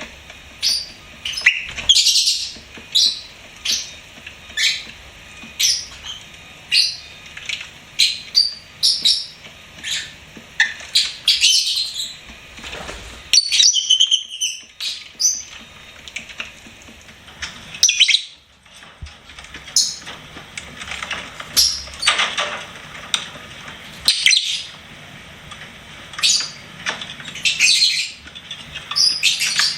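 Lovebirds chirping: a steady stream of short, sharp, high-pitched chirps, several a second, with a few gliding whistled notes about fourteen seconds in.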